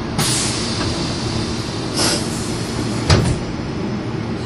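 Meitetsu 100 series commuter train standing at a subway station with a steady low rumble. A short hiss comes about half a second in and again about two seconds in, then a sharp thud about three seconds in as the doors close.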